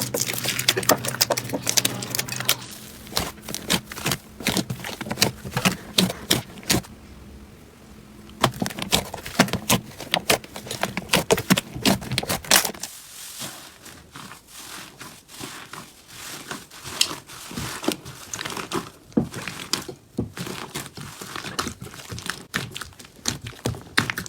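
Slime being squeezed and pressed by hand, with a dense, irregular run of crackles and pops and a brief quieter spell partway through.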